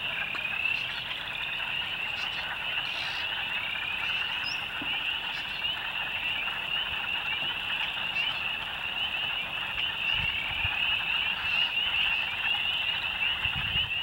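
Wetland frog chorus: a dense, steady mass of high-pitched peeping from many small frogs, with the lower, rolling duck-like quacking of wood frogs beneath it.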